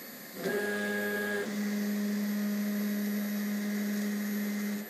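CNC table's axis drive motors humming as they move the head along the drawing path: a steady pitched machine hum that starts about half a second in, drops to a lower pitch about a second and a half in, and cuts off sharply near the end.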